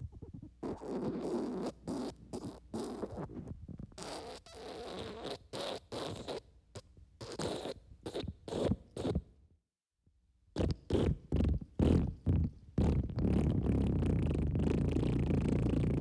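Wet fart sound effect: a long series of irregular, sputtering bursts, a brief pause, then a quicker run of bursts. From about three-quarters of the way in, a steady synthesizer music bed takes over.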